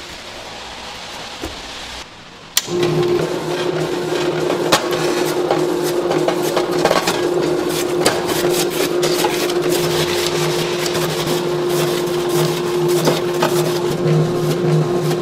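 Electric vegetable slicer starting up suddenly about two and a half seconds in, its motor running with a steady hum while an onion is fed in and sliced. Many small ticks of onion slices hitting the clear plastic housing.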